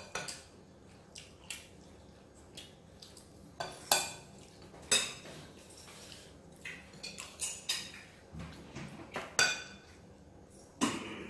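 Metal spoons and forks clinking and scraping against ceramic plates while eating: a dozen or so sharp, irregular clinks.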